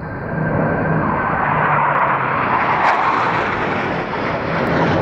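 Four Blue Angels F/A-18 jets in diamond formation passing overhead: loud jet engine noise that builds over the first second and then holds steady.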